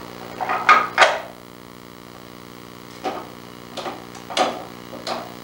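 Small wooden drawers of a miniature chest knocking and clattering as a parakeet works at them with its beak: a scatter of short knocks, the loudest pair about a second in, over a steady low hum.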